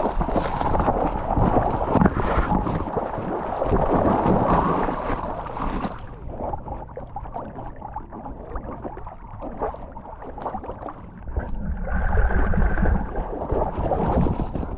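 Reed and grass stems scraping and rustling against a dog-mounted action camera as a cocker spaniel pushes through a reed bed. About six seconds in this gives way to quieter water sloshing as the dog swims. Louder splashing follows near the end as it comes out of the water.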